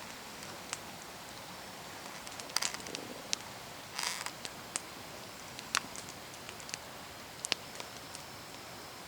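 Small wood campfire crackling, with irregular sharp pops and snaps over a faint steady hiss.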